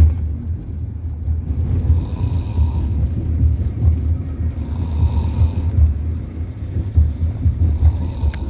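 A child asleep sitting up, snoring with the mouth open: breaths come about every three seconds over a steady low rumble.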